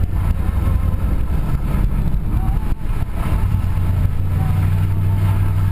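Truck engine and road noise while driving: a steady low drone.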